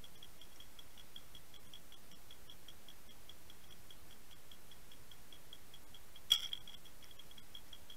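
Rapid, even, high-pitched ticking, about six ticks a second, over a faint steady hiss. One sharper, louder click comes a little after six seconds in.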